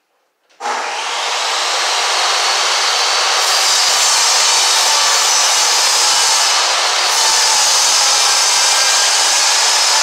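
A machine switches on about half a second in and runs steadily with a loud, even rushing noise.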